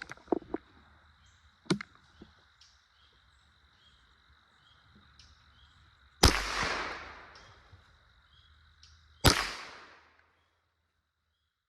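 Two .22 rifle shots about three seconds apart, each a sharp crack with a short echoing tail, fired at a squirrel in the treetops.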